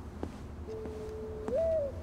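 A bird's soft cooing call: a long low note held for nearly a second, then a jump to a higher note that slides down.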